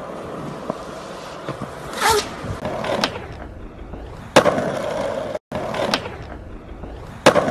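Skateboard wheels rolling on concrete, broken by several sharp clacks of the board hitting down. The loudest clack comes a little past four seconds in, and another comes near the end.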